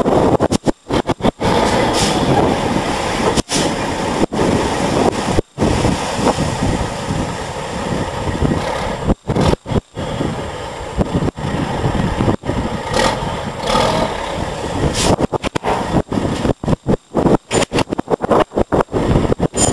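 Triaxle dump truck's diesel engine running while a load of half-inch crushed stone slides out of the raised body, the truck pulling forward near the end as the last of the stone runs out. The sound is steady and dense, cut by many brief dropouts.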